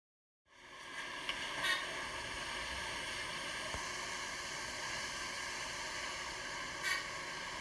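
Steady hiss and hum of an elevator car's interior, starting about half a second in, with a few faint short clicks.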